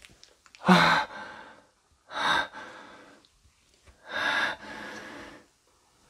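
A person breathing hard close to the microphone: three loud, sharp breaths, each trailing off more quietly.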